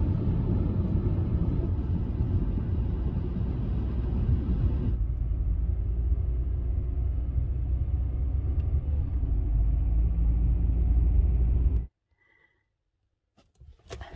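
Steady low road-and-engine rumble inside a moving Honda Element, with tyre and wind noise over it. The sound shifts a little about five seconds in and cuts off abruptly near the end, leaving near silence with a few faint clicks.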